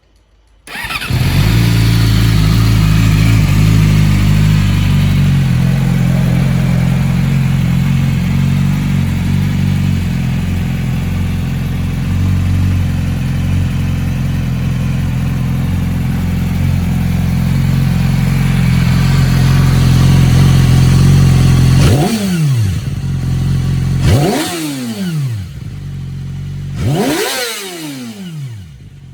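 2009 Yamaha YZF-R6's inline-four engine with a Yoshimura slip-on exhaust starting up under a second in and idling steadily, then revved in three or four quick throttle blips near the end, each rising sharply in pitch and falling back.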